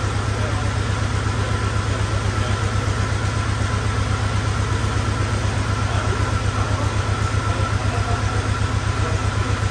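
A 1994 Chevrolet S10 pickup engine idling steadily, with an even low pulsing and a faint, steady high whine over it.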